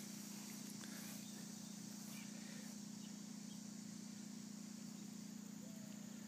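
Quiet outdoor ambience: a steady low hum under an even, high-pitched insect drone, with a faint short call near the end.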